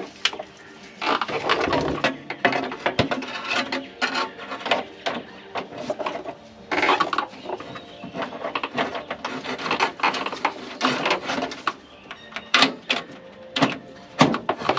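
Cordless impact wrench hammering in repeated short bursts of about one to two seconds each as it works a rear shock absorber mounting bolt, with single sharp clicks between bursts.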